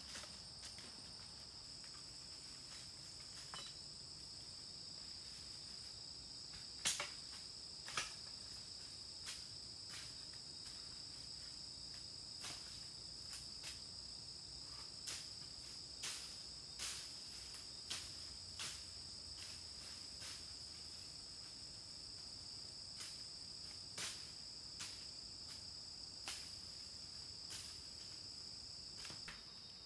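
Steady high-pitched drone of insects in the forest, with scattered sharp clicks and snaps over it, the loudest about seven and eight seconds in.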